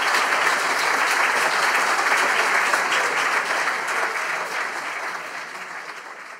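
Audience applauding, a dense patter of many hands clapping that holds steady and then fades out over the last couple of seconds.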